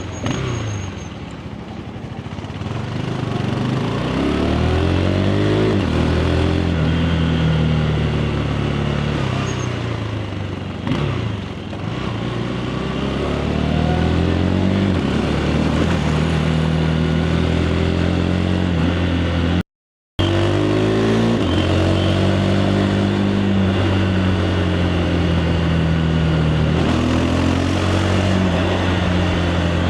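KTM 390 Adventure's single-cylinder engine through its stock exhaust, pulling hard and shifting: the pitch climbs, drops at each gear change, then climbs again, over and over. The sound cuts out completely for a split second about two-thirds of the way in.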